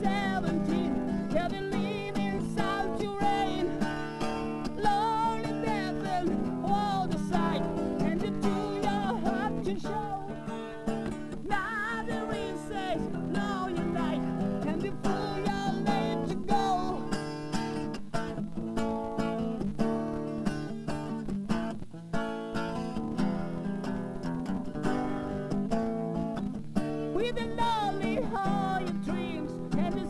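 Electro-acoustic guitar playing an instrumental piece: a quick picked melody with some bent, wavering notes over sustained chords.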